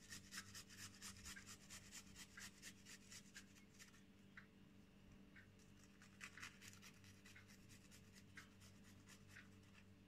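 Garlic clove grated on a small metal hand grater, faint: quick rasping strokes for the first few seconds, then slower, scattered scrapes.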